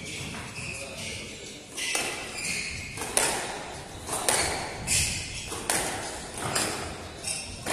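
Squash rally: the ball cracking off rackets and the court walls about once a second, each hit sharp and echoing.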